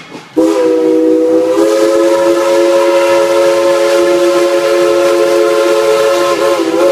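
Steam locomotive's chime whistle, on a full-size engine dressed as Thomas the Tank Engine, blowing one long steady chord. It starts about half a second in and wavers briefly near the end.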